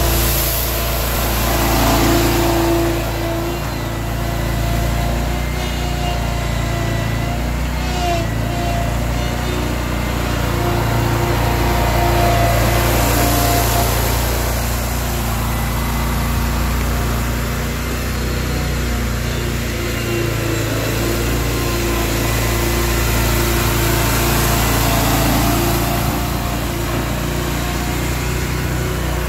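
Engine of a Scag V-Ride stand-on zero-turn mower running steadily as it pushes leaves, its pitch wavering slightly now and then.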